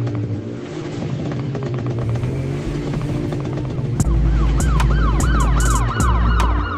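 Trap beat playing with no vocals. About four seconds in, a heavy deep bass and ticking hi-hats drop in under a fast, repeating yelping siren sound, about four wails a second.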